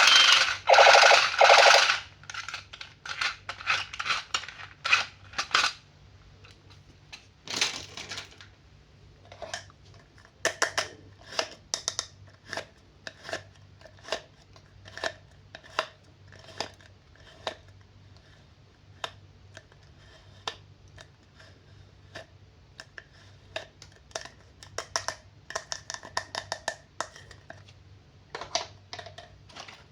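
A long run of light, irregular clicks and taps from hard plastic being handled, as with toys and packaging being unboxed. Music plays for the first two seconds.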